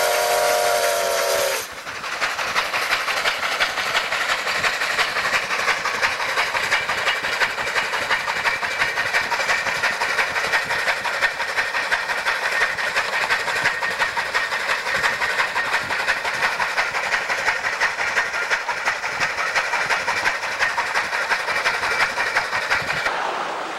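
Steam whistle of a Durango & Silverton K-28 2-8-2 steam locomotive, cutting off sharply about two seconds in. Then the locomotive works past close by: a steady hiss of steam over a rapid, even beat of exhaust and running gear, fading a little near the end.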